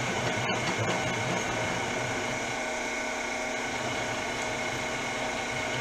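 OTMT combo lathe/mill's milling spindle running steadily in its slow speed range, turning a 2-inch boring head that is taking a cut in a bore: a constant motor hum with a steady gear whine.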